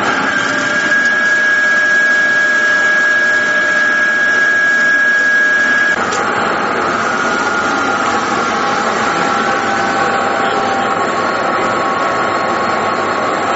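VERKON PAB-350 vertical twin-spindle machine running loud and steady with a high whine. About six seconds in, the whine cuts off and the machine's tone shifts.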